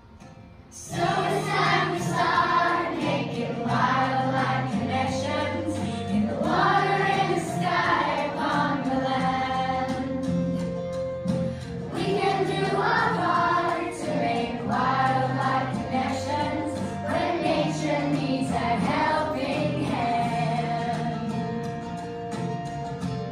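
A group of children singing a song together with instrumental accompaniment, starting about a second in.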